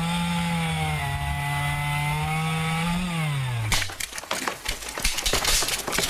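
Chainsaw revved up and held at full speed cutting into a hazel coppice stool; about three seconds in the revs drop away. After that comes a crackling, rustling run of snapping wood and moving branches.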